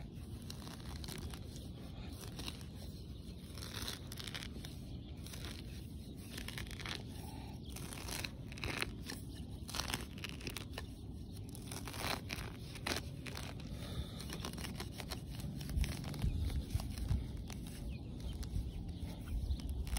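Steel hand digger being pushed into grass turf and soil, with crunching and tearing of roots and earth as a plug is cut around and levered over. It is a string of short scrapes and cuts, with heavier low thuds in the last few seconds as the plug is lifted.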